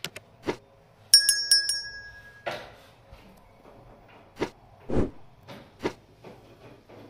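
A click, then a small bell struck rapidly about five times, its ring hanging on briefly: a subscribe-button notification-bell sound effect. Several separate light knocks follow.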